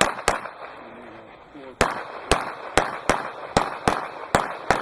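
Pistol fired rapidly in a practical shooting course of fire: about ten sharp shots, mostly in quick pairs a third to half a second apart, each pair on a fresh target, with a short echo after each shot.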